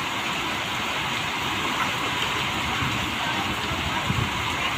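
Heavy monsoon downpour falling steadily, a dense even hiss of rain, with a couple of low thumps near the end.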